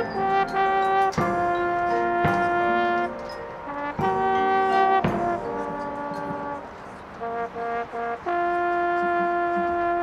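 High school marching band brass playing loud held chords with sharp accented entrances. A quieter passage of short, detached notes in the middle builds back into a long sustained chord near the end.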